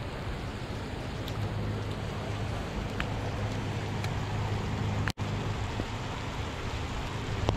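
Steady rain falling on the boat and lake, with a steady low hum underneath and a few faint sharp ticks. The sound cuts out for an instant about five seconds in.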